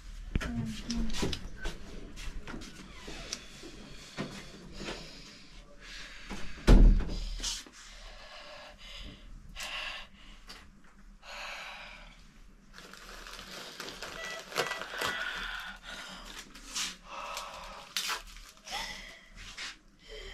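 Handling noises in a small room: scattered clicks and knocks, a loud thump about seven seconds in, and several short hissing sounds.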